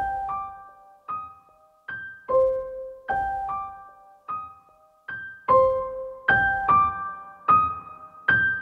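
Instrumental intro of a hip-hop beat: a sparse piano-like keyboard melody of single notes, each struck and left to fade, about one every 0.8 seconds. From about halfway through, a low bass sound joins under each note and the beat gets louder.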